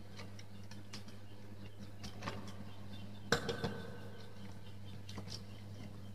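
Small clicks and knocks of plastic wall sockets, wires and a screwdriver being handled and set down on a wooden board, the loudest a sharp knock with a brief ring about three seconds in, then a couple of lighter clicks. A steady low hum lies underneath.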